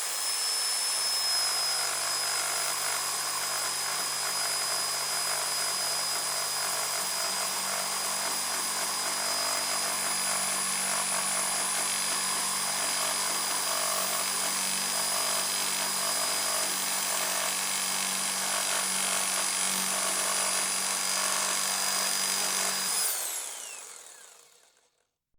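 Electric jigsaw running and cutting, a steady high motor whine over the rough rasp of the blade. Near the end the tool is switched off and the whine falls in pitch as the motor spins down and fades away.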